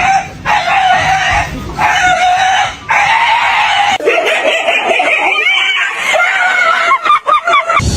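A cat yowling: a run of long, high, wavering cries, one after another with short breaks, breaking into quick warbling cries near the end.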